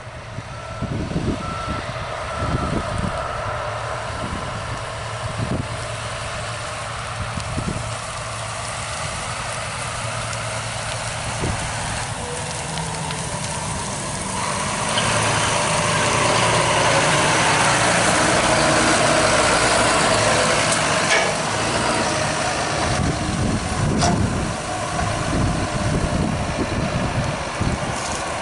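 John Deere T670i combine harvester running steadily while cutting spring barley, a continuous dense machine noise that grows louder from about halfway through.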